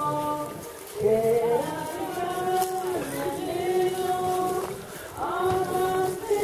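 Voices singing a slow hymn: one melody line of long held notes, sliding up into a new phrase about a second in and again near five seconds, with a downward slide between.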